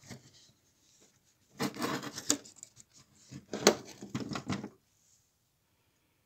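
Metal engine parts being handled: clinks and scrapes in two short bouts.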